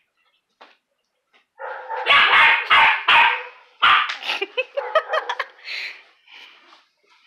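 Belgian Malinois puppy barking at a larger dog: a burst of loud barks starting about a second and a half in, followed by shorter, quicker yips that fade out.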